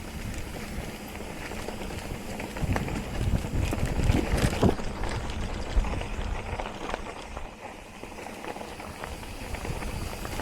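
Mountain bike riding over a dirt trail: tyre noise on rough ground with irregular knocks and rattles from the bike, getting louder and busier in the middle.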